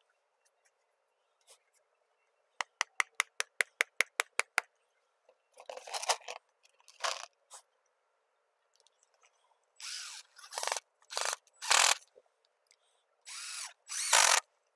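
A cordless drill/driver running in several short bursts, spinning up and stopping, as it drives screws through plastic bender board edging into a stake. Before the bursts comes a quick run of about ten sharp clicks, about five a second.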